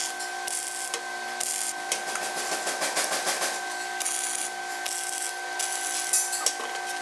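Electric arc welding: the arc crackling and hissing in uneven stretches as the brush elements are tack-welded to the steel body, over a steady hum.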